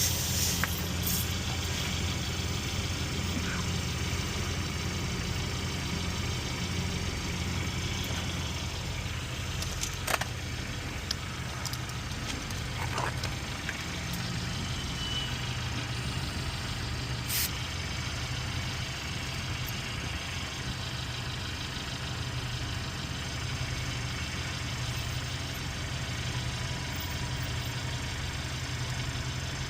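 An engine running steadily at idle, with a few short sharp clicks or knocks over it.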